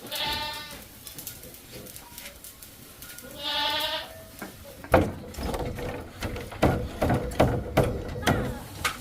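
Two short bleating calls from a farm animal, one at the start and one about three and a half seconds in. From about five seconds in, a run of irregular knocks and thumps.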